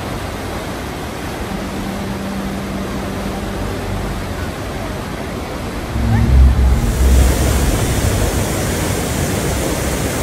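Rushing white water of a river's rapids, a steady roar, becoming louder and deeper about six seconds in as the sound of a large waterfall plunging over its brink takes over.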